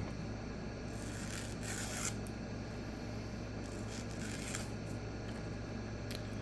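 Faint rustling and light scraping handling noises, a few brief ones about a second apart near the start and again past the middle, over a steady low electrical hum.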